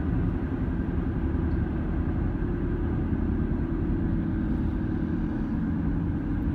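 Steady road noise inside a moving car's cabin: a low rumble of tyres and engine with a light hiss above it.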